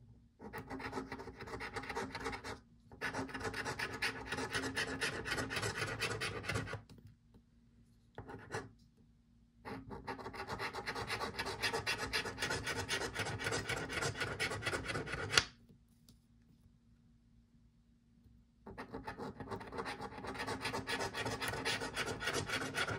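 A coin scratching the coating off a paper scratch-off lottery ticket in quick rasping strokes. The scratching comes in several long spells broken by short pauses.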